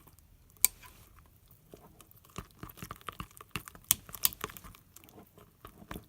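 Slime being stirred with water in a bowl: irregular clicks and taps of the stirring utensil against the bowl with wet squishing, busiest in the middle.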